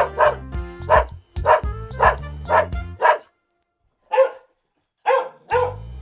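A dog barking over background music with a repeating bass line, about two barks a second. About three seconds in, the music drops out and a single bark sounds alone. Barks and music come back near the end.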